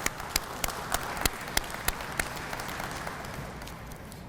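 Audience applauding, with a few sharp, close claps standing out over the general clapping in the first half; the applause fades away toward the end.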